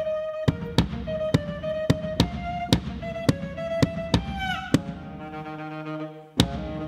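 Saxophone playing a line of held notes, with one note bent downward about two-thirds of the way through. Sharp percussive hits land about twice a second under it, the loudest near the end.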